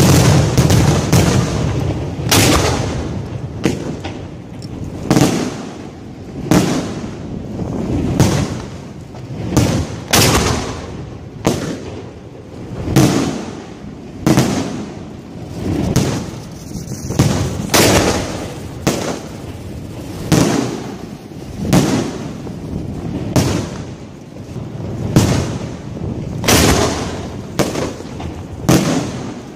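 Fireworks mortars firing and bursting at close range: a steady run of loud bangs, roughly one a second, each trailing off in a rumbling echo.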